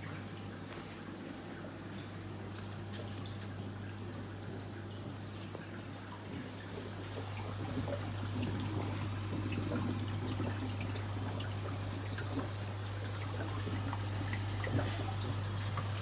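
Water pouring and trickling in an aquarium sump, getting louder about halfway through, over the steady low hum of the sump's return pump.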